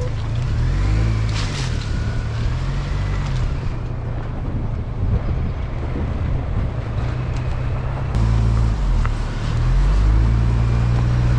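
GMC Canyon pickup's engine revving up and down repeatedly as the truck pulls through soft sand in four-wheel-drive high.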